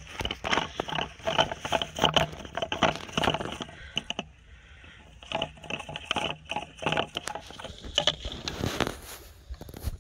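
Dense, irregular crackling and rustling close by, such as handling and movement through dry grass make, with a quieter spell about four seconds in.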